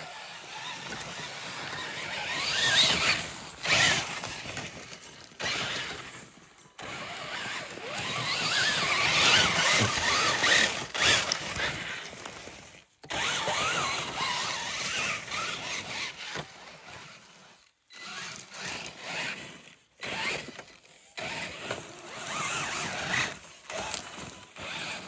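Electric Losi LMT RC monster truck's motor and drivetrain whining in repeated throttle bursts as it drives through dirt and brush, cutting out briefly a few times.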